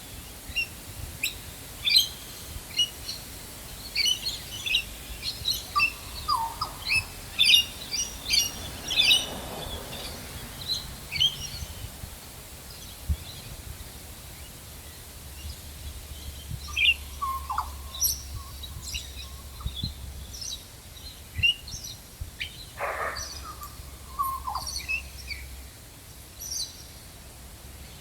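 Several birds chirping and calling: many short, high chirps from about 2 to 9 s in, with a few lower calls that drop in pitch, and one longer downward-sliding call at about 23 s.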